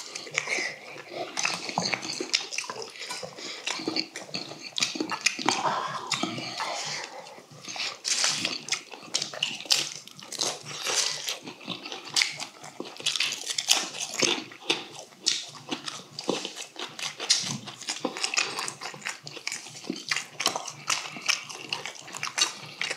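Slurping and open-mouthed chewing of braised corvina and bracken fern stew, with the odd clink of chopsticks and spoons against steel bowls. Irregular wet smacks and slurps come throughout.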